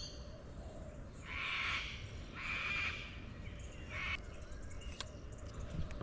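A bird calling outdoors: two drawn-out, rough calls about a second in, then a shorter one near four seconds in.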